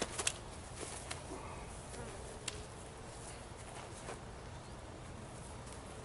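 Faint steady outdoor background noise, with a couple of sharp clicks right at the start and a few soft ticks scattered after.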